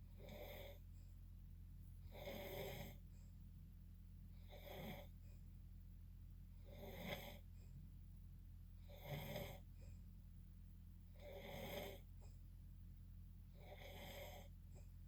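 A person snoring: seven short snores, each under a second, coming about every two and a quarter seconds over a steady low hum.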